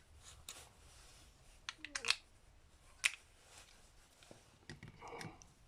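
A few light, scattered metal clicks and taps as the Phillips screws holding a small Mikuni carburetor's float bowl are undone and the parts handled.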